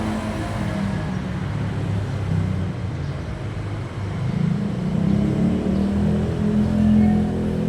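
Harley-Davidson Street Glide's V-twin engine running, getting louder about halfway through.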